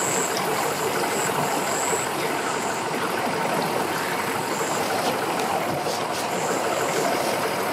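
Engines idling steadily, with no change in speed.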